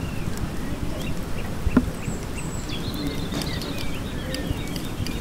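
A layered outdoor nature ambience with insects buzzing, short chirping calls and a steady low rush underneath. A single sharp knock comes about two seconds in.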